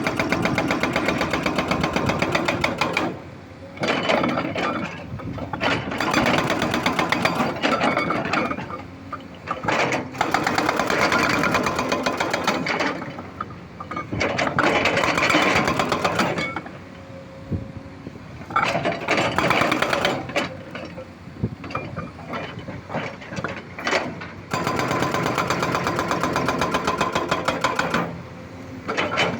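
Excavator's diesel engine running with a fast, even clatter, getting louder and quieter in bouts of a few seconds as the machine works.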